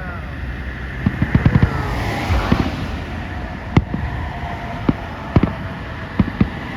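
Consumer fireworks and firecrackers going off all around, sharp bangs over a steady low rumble of more distant explosions. A quick run of pops comes about a second in, then single bangs at about one-second intervals.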